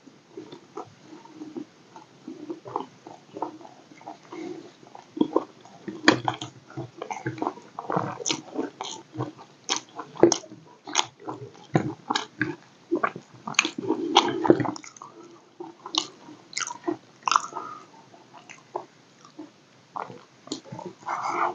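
A person eating close to the microphone: irregular chewing and biting with wet mouth smacks and clicks, from a meal of rice, roti and egg curry.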